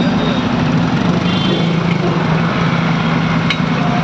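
Motor vehicle engine running with a steady low hum over continuous traffic noise in a flooded street, with a single sharp click near the end.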